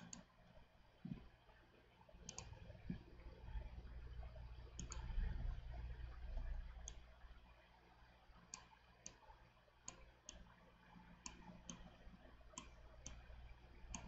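Faint computer mouse clicks: about a dozen single clicks at uneven intervals, more of them in the second half, over a low steady hum.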